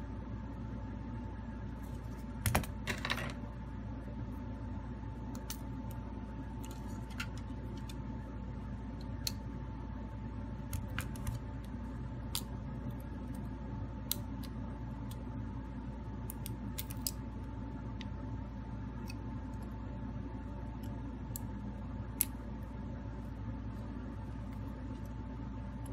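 Light clicks and taps of metal tweezers and a small tool on a smartphone's internal parts and connectors: a short cluster about two and a half seconds in, then single ticks every second or two. Under them runs a steady hum with a faint steady tone.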